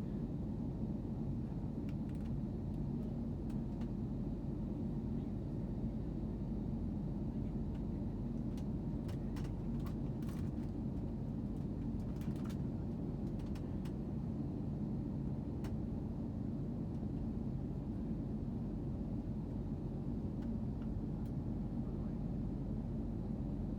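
Airliner cabin noise: a steady low rumble of the engines and airflow as heard from a passenger seat, with a few faint clicks partway through.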